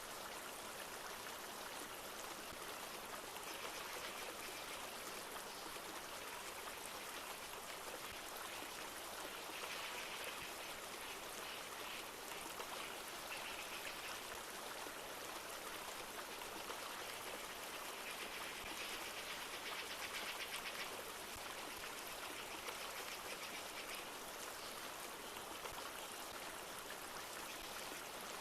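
A river flowing steadily with light rain, and several times a few seconds of high-pitched calls from birds.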